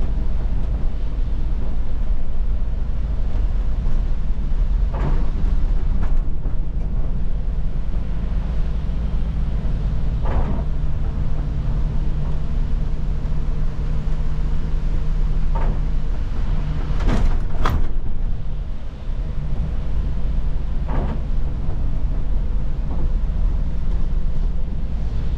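Cabin sound of an Iveco Crossway city bus driving on a wet road: a steady engine drone and tyre noise, with a short knock or rattle every few seconds. A brief sharp, high squeal comes a little past halfway.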